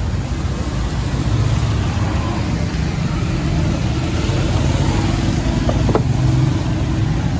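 Steady low engine rumble with a light tap about six seconds in.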